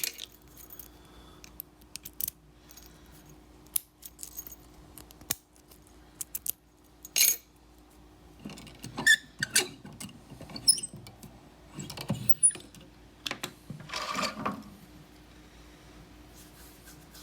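Irregular small metallic clicks, taps and short jingles of lock picks and a tension wrench being handled and worked in a 20mm brass padlock, with a few louder clusters of rattling near the middle and end.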